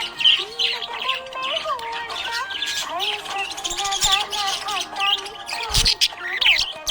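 Budgerigars chirping and twittering rapidly in high, busy calls, over background music with a sustained, gliding melody.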